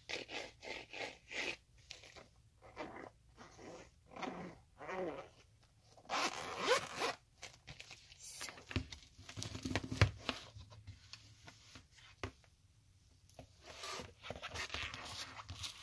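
Zipper of a fabric makeup bag being pulled open in several short strokes, with rustling as the bag is handled and brushes are taken out. A dull bump about ten seconds in is the loudest sound.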